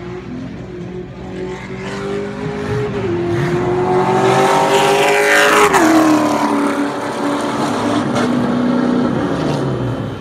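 Race car engine revving as the car approaches, then passing close about halfway through, its pitch dropping sharply as it goes by. Other engines run at lower pitch afterwards.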